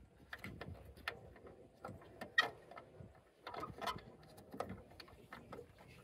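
Scattered small plastic clicks and rattles as hands work the turn-signal bulb socket and its wire loose inside a 2012 Toyota Corolla's rear tail-light housing. The sharpest clicks come about two and a half seconds in and again near four seconds.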